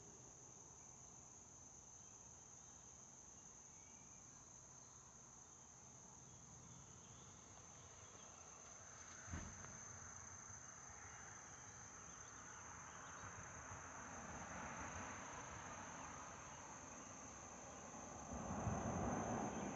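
Faint, steady high-pitched drone of insects. A single low thump about nine seconds in, and a rustling noise that grows louder near the end.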